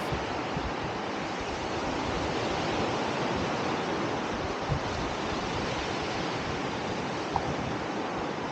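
Steady rush of sea surf on a beach, with a single soft thump about halfway through.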